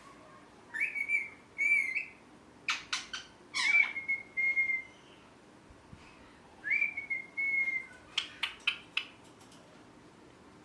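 Ringneck parrot (rose-ringed parakeet) whistling and chirping: a series of clear whistled calls, a few held steady on one note for up to about a second, broken up by short quick chirps and pauses.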